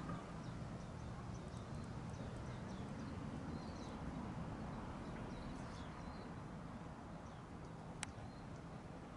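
Footsteps of someone walking outdoors, with small birds chirping faintly in the background. A single sharp click comes near the end.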